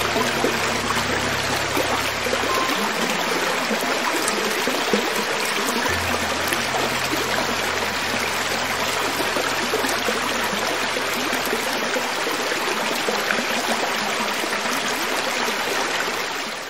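Creek water flowing over rocks: a steady, even rushing and splashing. Low held tones sound faintly underneath for the first couple of seconds and again from about six to eleven seconds in.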